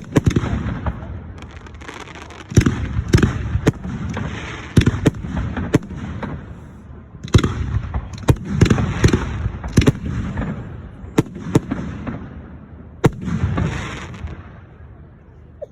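Fireworks display: aerial shells bursting in a rapid, irregular series of loud bangs, each trailing off into a rumbling crackle, sometimes several in a second.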